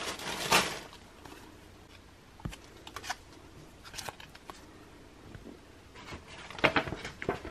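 Tissue paper rustling and a foil packet crinkling as they are handled, heaviest in the first second and again near the end, with scattered small crinkles and clicks between.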